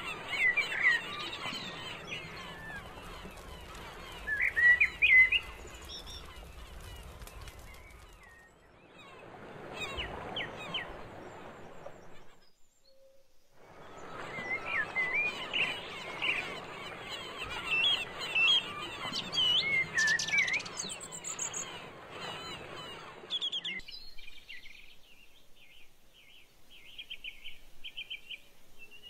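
Outdoor ambience of birdsong: many short chirps and calls over a steady hiss of background noise, cut off briefly twice. Near the end the hiss drops away and only faint, quickly repeated chirps are left.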